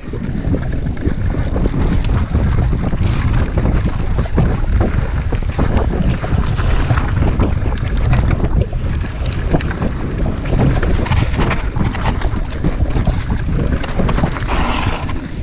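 Wind buffeting an action camera's microphone on a mountain bike ride, a steady low rumble, with the bike rattling and knocking over a rough dirt trail.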